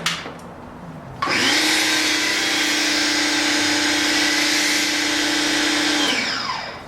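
Ryobi 1600 psi electric pressure washer starting abruptly about a second in, running with a steady hum and spray hiss while feeding a foam cannon. About five seconds later it winds down, its pitch falling as it fades out.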